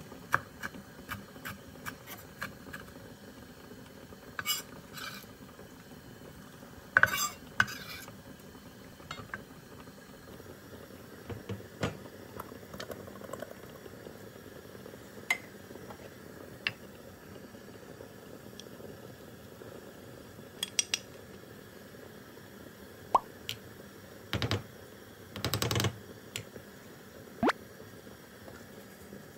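Kitchen utensils clinking and knocking against dishes and bowls during food preparation, in scattered light clicks, with louder clatters about seven seconds in and again near the end.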